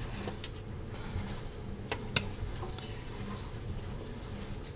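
Metal spoon clinking against a glass bowl while mixing chicken salad, a few sharp clinks, two of them close together about two seconds in.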